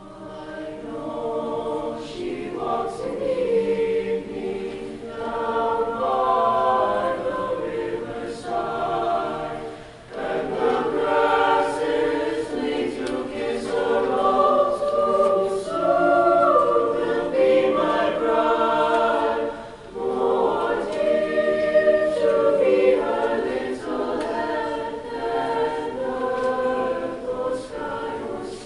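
Mixed choir singing in long phrases with held notes, the voices dropping off briefly about ten and twenty seconds in before the next phrase.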